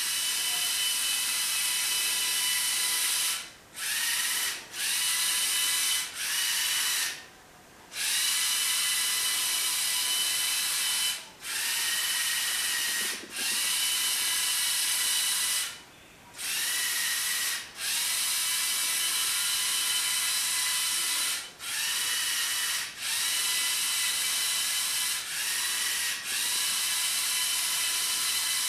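Two Lego EV3 motors driving a long Lego Technic vehicle through a gear reduction: a mechanical whine of motor and gears. It starts and stops about a dozen times in runs of one to four seconds, rising in pitch as each run starts.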